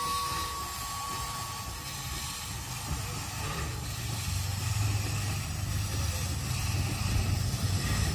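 Climax geared steam locomotive standing with steam hissing out around its cylinders. A ringing tone fades away in the first couple of seconds, and a low rumble grows louder from about four seconds in.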